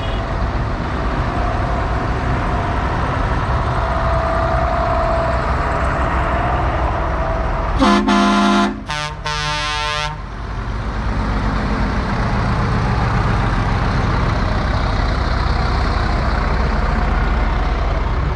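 Tractor engines running steadily, with a vehicle horn sounding two blasts about eight seconds in, each about a second long, the second lower in pitch.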